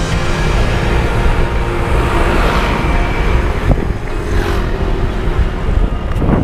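Wind and road noise on a handlebar camera's microphone as a bicycle rides down a street, with motorcycles and cars passing. There is a heavy low rumble and swells about two and a half and four and a half seconds in.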